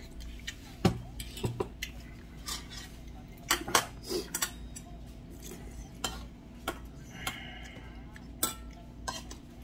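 A metal spoon and chopsticks clinking and scraping against a stainless steel bowl while eating: scattered sharp clinks, roughly one a second, over a steady low hum.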